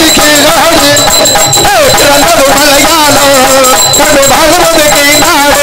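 Music from a Tamil folk stage drama: a single ornamented melody that glides and wavers in pitch, played loud and steady.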